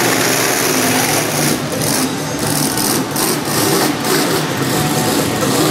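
Monster truck engine running and revving unevenly as the truck drives and turns across the arena floor.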